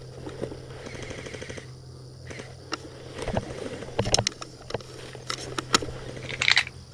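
Airsoft gunfire: rapid full-auto bursts in the first two seconds, then scattered single sharp cracks, over a steady low hum.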